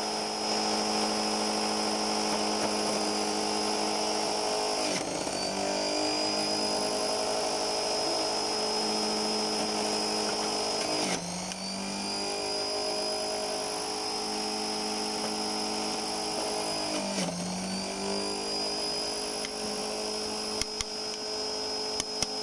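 Electric juicer motor running at high speed with a steady whine. Three times, about every six seconds, its pitch sags and then climbs back up to speed.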